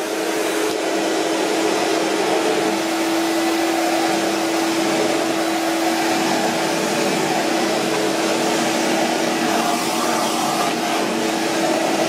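Miele S224 Electronic canister vacuum cleaner from 1980 running steadily, a constant rush of air with a steady motor whine, as its floor nozzle is pushed over a wooden floor sucking up baking soda.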